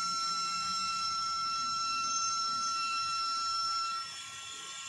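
Maxxtrax 40 mm turbo RC cooling fan spinning fast: a steady, high, jet-like whistling whine over a rush of air. About four seconds in the whine drops away and the sound gets quieter.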